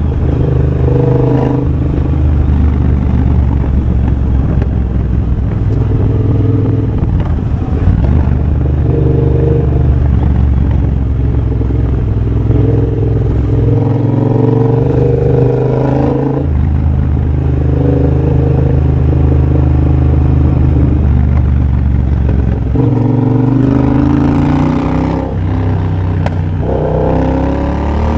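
2023 Triumph Bobber's 1200 cc parallel-twin engine running loud through a de-catted X-pipe and Motone Shorty exhaust while riding. The engine note holds steady, dips at gear changes and rises twice as the throttle opens, once about five seconds before the end and again near the end.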